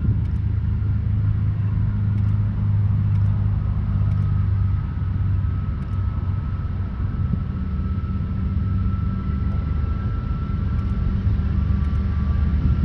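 Diesel-electric locomotives of a freight train (NR and DL class) approaching, not yet in sight: a steady low engine drone over a rumble, with a faint thin high whine above it.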